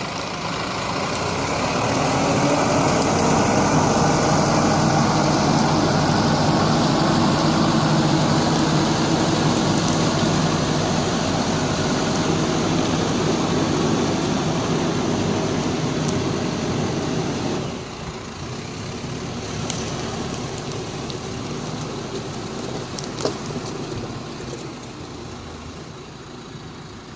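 New Holland T4.95 tractor's four-cylinder diesel engine running steadily while the tractor drags a log. About two-thirds of the way through the engine sound drops off suddenly, and it grows quieter still toward the end.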